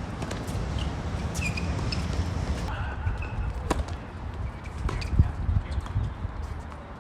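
Wind rumbling on the microphone, with birds chirping several times in the first half. In the second half there are a few sharp knocks of tennis balls on racquet or court.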